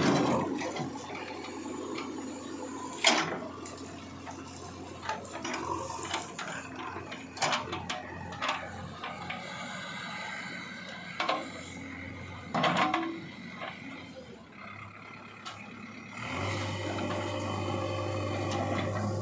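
Backhoe loader at work: its diesel engine runs steadily under sharp knocks and cracks at irregular intervals, and the engine grows louder and steadier a few seconds before the end.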